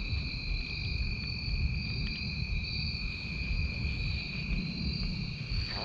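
Insects trilling steadily in the woods at two high, unchanging pitches, over a low rumble. A short burst of noise comes near the end.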